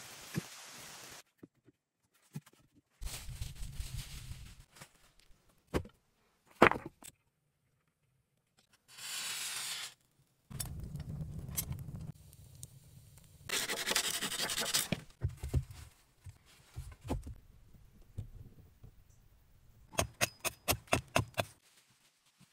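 Short separate bursts of scraping and rubbing noise, cut apart by spells of dead silence. Near the end comes a quick, even run of footsteps through dry fallen leaves.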